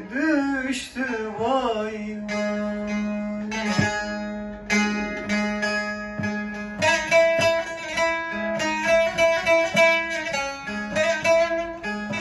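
Solo bağlama (Turkish saz) with a man's voice holding a wavering sung note for the first couple of seconds. Then a rapidly plucked melody runs over a steady drone, growing busier and louder about seven seconds in.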